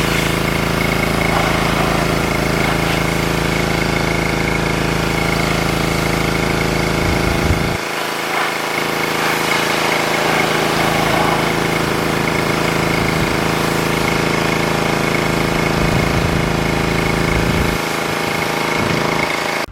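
Pressure washer running steadily with a motor hum under the hiss of the spray as the vehicle is rinsed down. The low hum drops away briefly about eight seconds in and again near the end.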